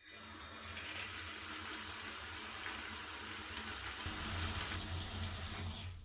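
A steady rushing noise with a low hum beneath it, starting and stopping abruptly.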